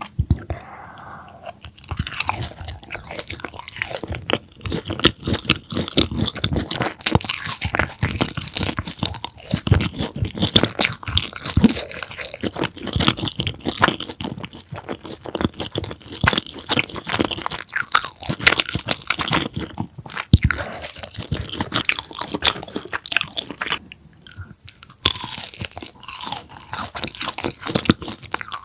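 Close-miked crunching and chewing of crisp food: a continuous run of bites and chews, with a short lull about 24 seconds in.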